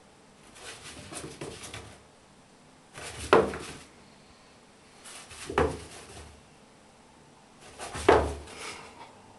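Chinchilla rolling in bath dust in a plastic tub: four bouts of rustling and scuffing, each about a second long, the later three each with a sharp thump at its loudest point.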